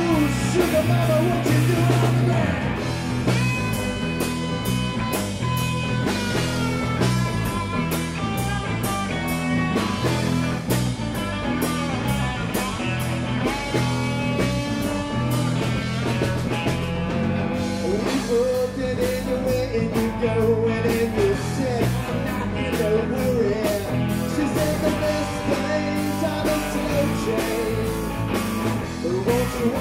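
Live rock band playing, with electric guitar lines over bass and a steady drum beat.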